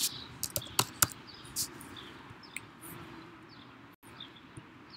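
A quick run of sharp mouse clicks in the first second and a half, the loudest about a second in, as values are picked from dropdown menus. Faint short high chirps recur in the background throughout.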